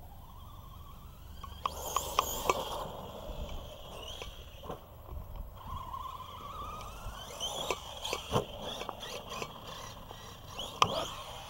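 Radio-controlled Arrma Big Rock monster truck driving: its electric motor whines, rising in pitch as the truck speeds up, with sharp knocks and clatters as it bounces and lands, about two seconds in, around eight seconds and near the end.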